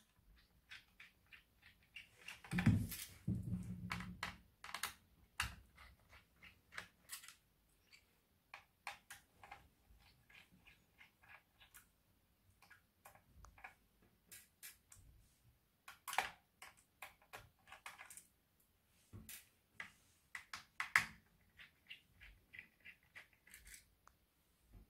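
Faint runs of light clicks and ticks from a cross-head screwdriver turning out the small screws that hold a laptop hard drive in its bay, with fingers handling the drive on the plastic chassis. There is a louder knock about three seconds in.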